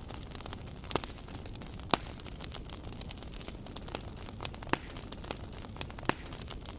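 Wood campfire crackling: sharp pops at irregular intervals, the loudest about two seconds in, over a steady low background noise.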